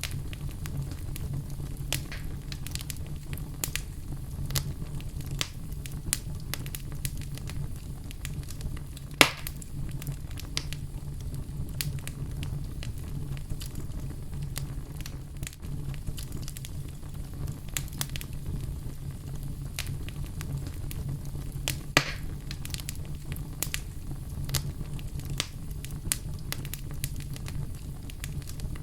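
Wood fire burning in a fireplace: a steady low rumble of flames under constant irregular crackles, with two louder pops about nine seconds in and again near twenty-two seconds.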